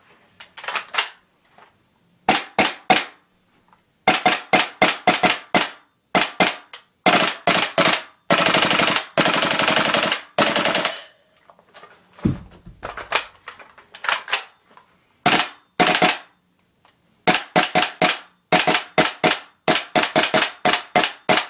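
WE SCAR gas-blowback airsoft rifle being dry-fired with no BBs: sharp shots in singles and short bursts, with one long full-auto burst of about two and a half seconds near the middle. A brief low thud comes about twelve seconds in.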